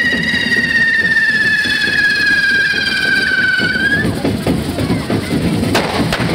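Fire-devil pyrotechnics: one long high whistle that slowly falls in pitch and cuts off about four seconds in, followed by a few sharp firecracker bangs near the end, over a low rumble of noise.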